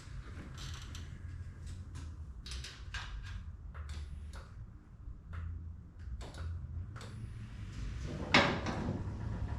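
Scattered clicks, taps and knocks of hard parts being handled and fitted together while mounting a foot onto a generator, with one louder clunk near the end, over a steady low hum.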